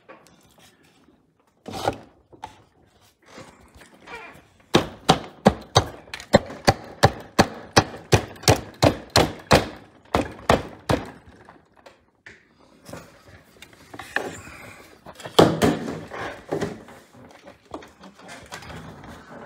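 Knocks and clacks of wood and metal from handling a Chinese leather shoe patcher and its tight-fitting wooden table. A run of evenly spaced sharp knocks, about three a second, lasts several seconds, followed by a few louder, irregular knocks.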